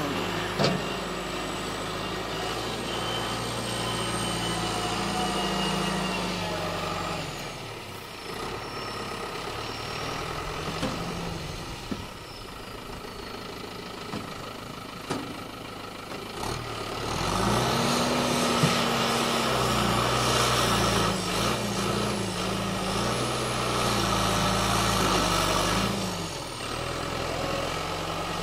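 New Holland tractor's diesel engine running as the front loader pushes pan clay. It is quieter through the middle, then revs louder and higher for about ten seconds, with the pitch stepping up and down, before easing back near the end.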